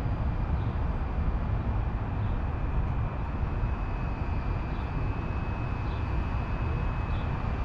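Steady outdoor ambient noise with a heavy low rumble and a faint, thin steady high whine over it.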